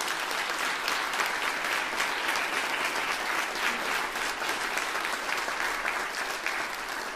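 Applause: many hands clapping in a dense, steady patter that holds at an even level throughout.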